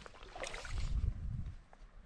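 Water sloshing and swirling around a wader's legs in a shallow river, with a short rush about half a second in and a low rumble on the microphone that fades near the end.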